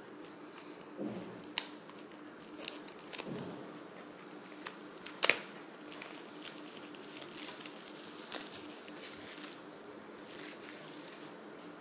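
Clear plastic wrap and seal being picked at and peeled off a cardboard phone box by hand: soft crinkling and rustling with scattered sharp clicks and crackles, the loudest about five seconds in. A faint steady hum lies underneath.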